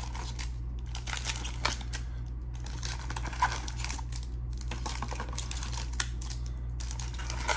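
Foil-wrapped Topps Pristine card packs crinkling and clicking as they are pulled out of a cardboard hobby box and set down on a table: a string of irregular light rustles and taps, the sharpest about two, three and a half and six seconds in, over a steady low hum.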